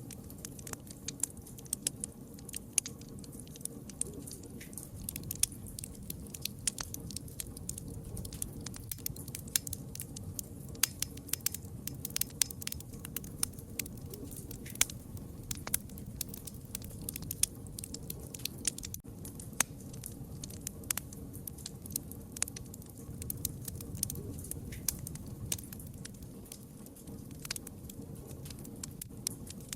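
Wood fire burning steadily with frequent sharp, irregular crackles and pops over a low rumble of flames.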